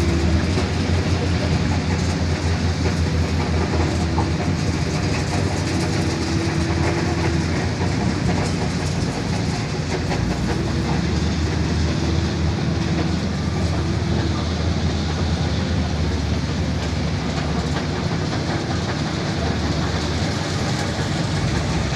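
Heavy diesel dump truck engine running, a steady low rumble.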